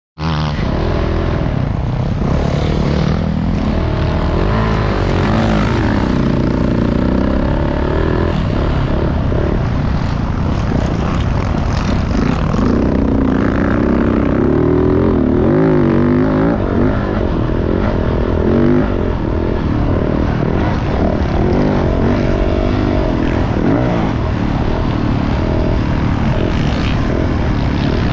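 Motocross dirt bike engine revving, its pitch rising and falling again and again as it is ridden around the track.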